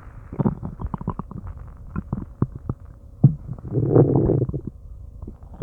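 Human stomach and intestines gurgling as they digest food: a string of small pops and clicks, a sharp pop a little past three seconds, then a longer, louder growl about four seconds in.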